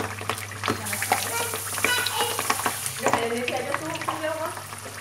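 Pork belly frying skin-side down in deep hot oil: a steady sizzle broken by frequent sharp pops and crackles as the skin blisters and puffs.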